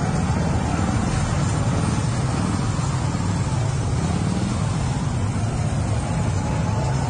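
Steady low rumble of a running motor vehicle's engine.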